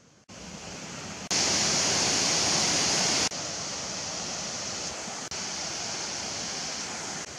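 Waterfall: a steady rush of falling water. It comes in suddenly just after the start, is loudest for about two seconds from about a second in, then drops back to a steady rush.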